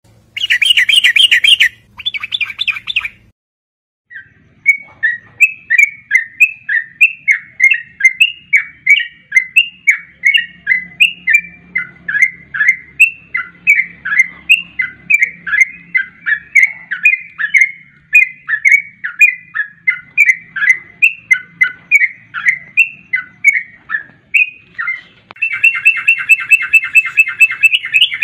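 Yellow-vented bulbul song, a lure recording: rapid bubbly chattering at the start, then a long run of quick repeated chirping notes, about two or three a second, and near the end another dense, rapid chatter.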